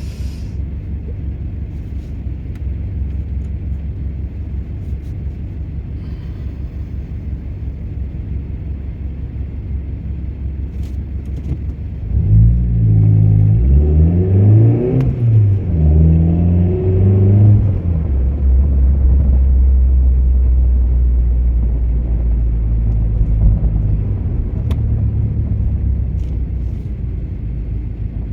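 A car's engine and exhaust heard from inside the cabin, droning low and steady, then about halfway the car accelerates hard and the engine note climbs and drops through a couple of gear changes before settling into a louder steady drone.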